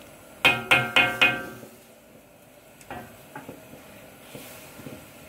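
Wooden spatula knocked four times in quick succession on the rim of a large metal wok, each knock ringing briefly; two fainter knocks follow about three seconds in.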